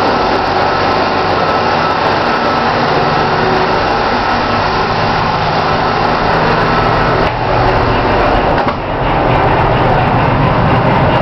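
Loud, steady machinery drone of a container ship, with a faint steady whine running through it. It briefly drops in level twice in the second half.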